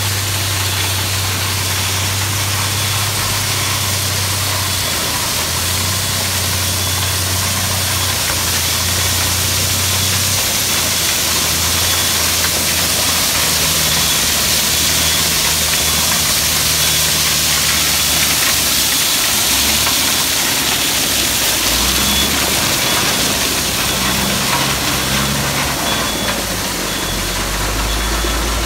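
Dump truck's diesel engine running at low speed while crushed stone pours out of the raised bed through the open tailgate, a steady rushing hiss of gravel over the engine. The engine note shifts a few times as the truck creeps forward spreading the stone.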